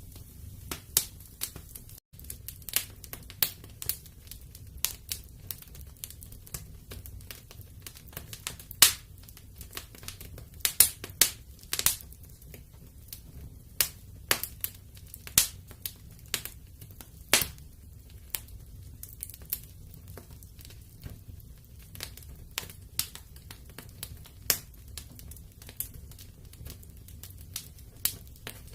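Wood fire crackling in a fireplace: irregular sharp pops and snaps, some loud, over a soft low rumble of the flames.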